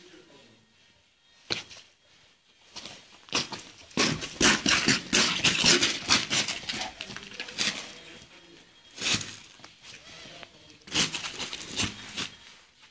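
A Cane Corso paws and noses a worn leather football across concrete. Irregular scuffing, scraping and knocking, busiest from about four to six seconds in and flaring again twice near the end.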